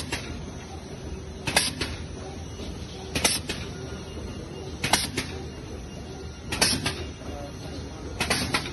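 Shopping bag making machine running: a steady mechanical hum with a sharp clacking stroke repeating evenly about every 1.7 seconds as the machine cycles.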